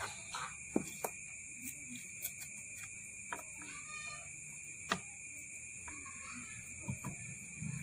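A handful of sharp clicks and taps from hands working a taped transformer coil bobbin on a winding jig, over a steady high-pitched whine.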